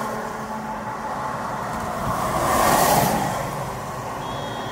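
A car passing close by on the highway, its tyre and engine noise swelling to a peak about three seconds in and then fading as it drives away.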